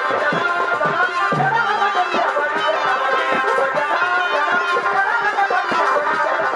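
Purulia Chhau dance music: a shehnai-like reed pipe playing a wavering, ornamented melody over quick, steady folk drumming.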